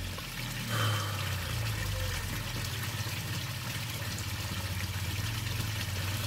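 Water pouring steadily from pond return pipes into a koi pond, splashing onto the surface, over a steady low hum. The splashing is briefly louder about a second in.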